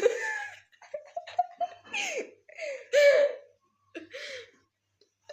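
A burp trails off at the very start, then people laugh in short, rising and falling bursts and giggles, loudest about three seconds in.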